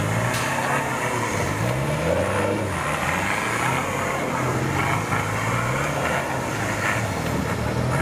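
Off-road 4x4's engine revving up and down several times as it works through a river crossing, over a steady rush of churned water.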